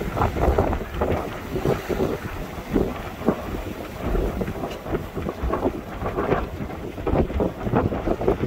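Strong wind of 30-plus knots buffeting the microphone in uneven gusts, with water rushing and splashing past the hull of a sailboat under sail.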